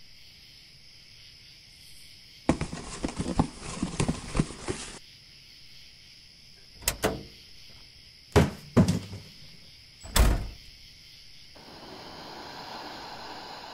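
A wooden door being rattled and knocked in a rapid, uneven burst for a couple of seconds, then a latch clicking twice and three separate thuds, the last one the loudest.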